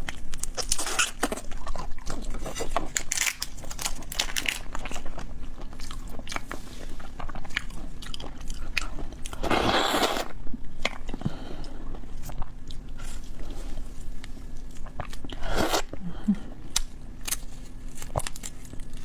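Close-miked eating of shellfish: shells cracking and crunching with biting and chewing, in many short sharp crackles. A longer crackling stretch comes about halfway through.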